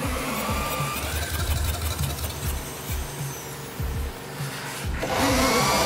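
Moskvich side-valve four-cylinder engine with a plexiglass cylinder head firing irregularly in uneven low thumps, with background music over it. About five seconds in it gets louder and steadier.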